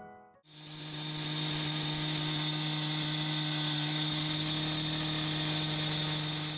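A machine running steadily, with a constant low hum and a hiss above it, starting about half a second in.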